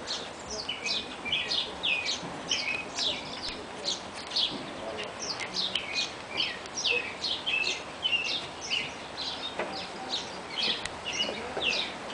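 Birds chirping outdoors: a steady run of short, quick, high notes that fall in pitch, repeated over and over.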